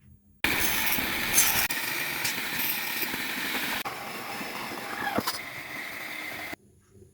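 Homemade power tool driven by a 775 DC motor running loudly with a harsh, noisy sound, starting and stopping abruptly, with a brief falling whine about five seconds in.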